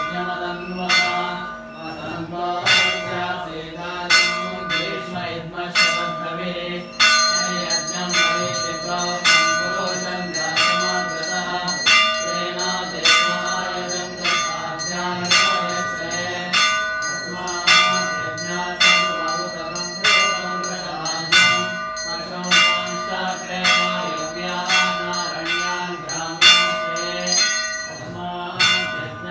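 Hindu temple bells ringing in a repeated rhythm over a steady tone. A brighter, higher bell joins about seven seconds in and thickens the ringing.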